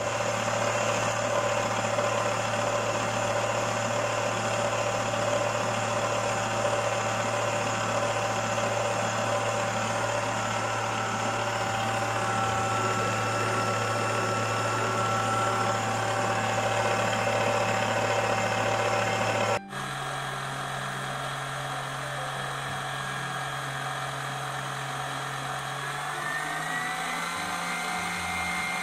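Kyowa KW4510 stand mixer's motor running steadily at medium speed, beating a thick batter with the flat beater. After a sudden change about two-thirds in, it hums slightly quieter while whipping cream with the wire whisk, its pitch rising a little near the end.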